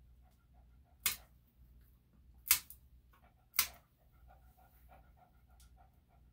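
Plier-style dog nail clippers snipping through a small dog's toenails: three sharp clicks, with the Bichon/Shih-Tzu cross panting quickly and steadily in between.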